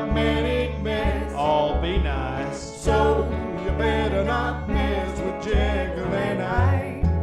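Background music: a song with a sung vocal line over held bass notes.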